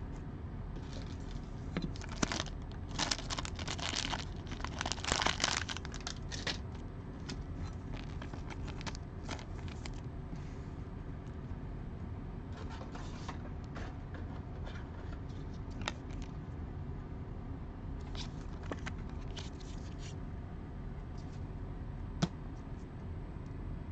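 Plastic rustling and scraping as a trading card is slid into a clear rigid plastic holder (a top loader). The rustles come in a busy cluster over the first several seconds, then thin to a few scattered light clicks over a faint steady hum.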